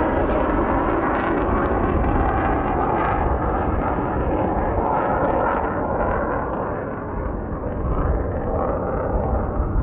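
A-10 Warthog jet noise: a steady loud roar over a deep rumble. It dips slightly about seven seconds in, then builds again.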